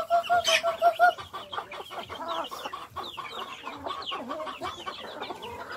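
A flock of chickens clucking while feeding, with a quick run of repeated clucks in the first second, then softer clucks and short high chirps.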